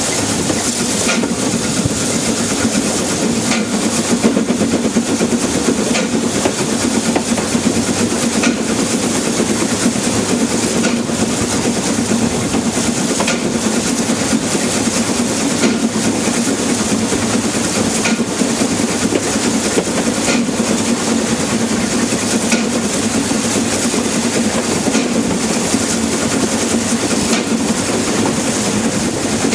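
Narrow-gauge steam locomotive 101 of the Selfkantbahn running with its train: a steady rumble with hiss, and faint clicks of the wheels over rail joints every second or two.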